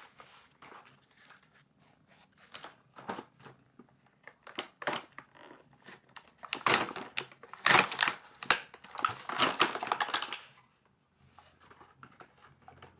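Plastic packaging crinkling and rustling as it is handled, in irregular crackles with a sharp click at the very start. It is loudest and densest from about six and a half to ten and a half seconds in.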